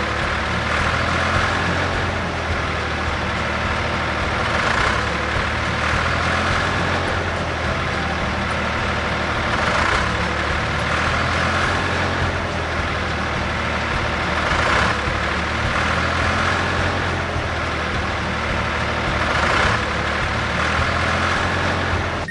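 Truck engine running steadily, with a low hum and a brighter swell about every five seconds.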